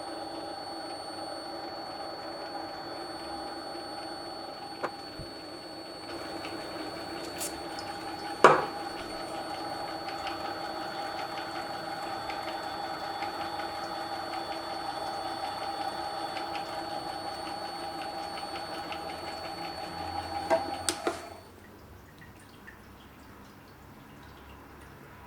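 Mini lathe running steadily with a hum and a faint high whine, a single sharp knock about eight seconds in, then the machine switched off and going quiet about 21 seconds in.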